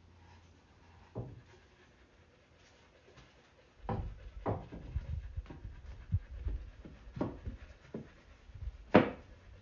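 Plywood box panels being handled and fitted together for a dry fit: a single knock, then a string of irregular wooden knocks and bumps as the pieces are set against each other and on the table, ending with one sharp, louder knock.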